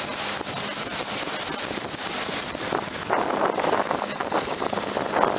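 Boat running at speed across open water: wind buffeting the microphone over the rush of water along the hull, with a faint steady motor drone underneath. The wind noise grows rougher and louder about three seconds in.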